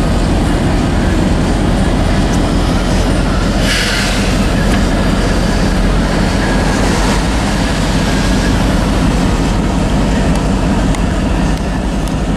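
Steady engine and road noise inside a moving vehicle's cab, with a low hum under it and a brief hiss about four seconds in.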